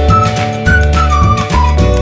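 Background music: a high, flute-like melody of short, slightly bending notes over a deep bass line with a steady beat.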